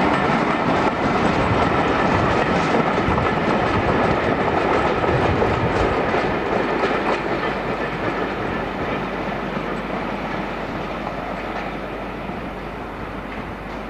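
A locomotive-hauled train of passenger coaches rolling along, its wheels clattering over rail joints. The sound is loudest in the first half, then fades steadily as the train draws away.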